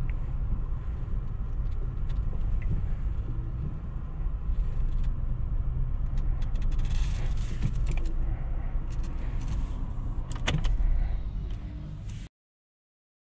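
Inside the cabin of a 2020 Volkswagen T-Cross 200 TSI moving slowly through town: a steady low rumble from the engine and tyres, with scattered clicks and knocks in the second half, the loudest shortly before the sound cuts off suddenly near the end.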